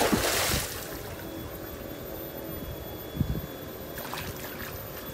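A hooked fish splashing at the water's surface beside a landing net, a loud burst of splashing lasting under a second at the start. Wind rumbles on the microphone throughout, with a low thump about three seconds in.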